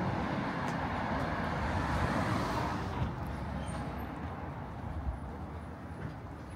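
A car driving past on the street, its tyre and engine rush swelling and then fading away about three seconds in.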